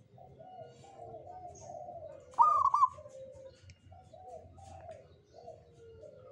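Zebra dove (perkutut) cooing: a near-continuous run of low, rolling coos, with a much louder, higher-pitched call about two and a half seconds in.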